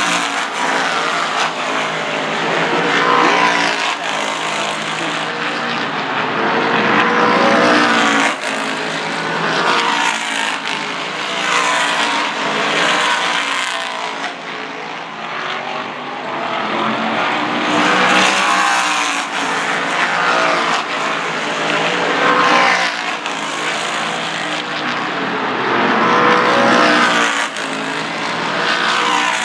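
Whelen Modified race car's V8 engine at speed on a short oval. It rises in pitch as the car accelerates, then falls off as it eases off the throttle, again and again.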